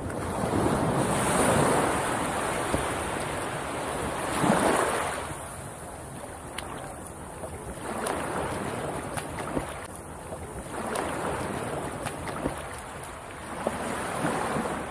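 Small waves washing up a flat sandy beach at the water's edge, the surf swelling and fading about five times, every three seconds or so.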